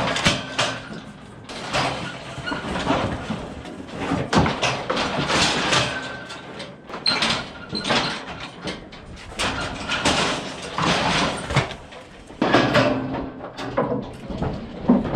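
Steel-and-wood cattle squeeze chute being worked by hand: levers pulled and sliding gates banging shut, a long run of repeated metallic clanks and thuds.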